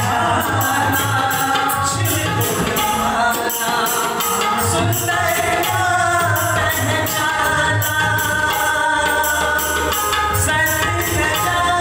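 Live Indian vocal music: a man singing with harmonium accompaniment, a dholak drum beating a steady rhythm and jingling percussion keeping time.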